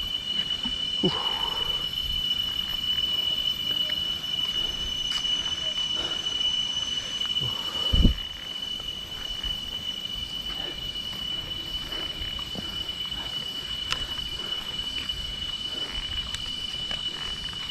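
Insects droning in one steady high-pitched tone, over low rumbling noise, with a single thump about eight seconds in.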